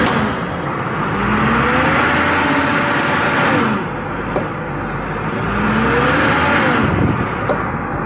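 Caterpillar 320D excavator's diesel engine running under hydraulic load, its pitch rising, holding and falling back twice.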